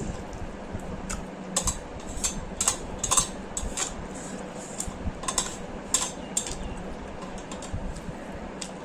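Eating noodles with chopsticks: irregular sharp clicks and taps of chopsticks on the bowl and mouth sounds, over a steady low hum.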